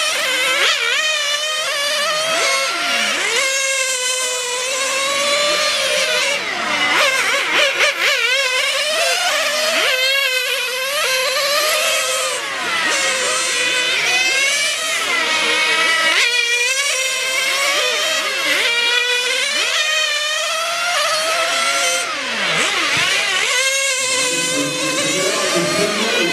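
Several combustion-engined radio-controlled racing cars lapping a circuit, their small two-stroke engines overlapping in a high-pitched whine that constantly rises and falls as the cars accelerate down the straights and back off into the corners.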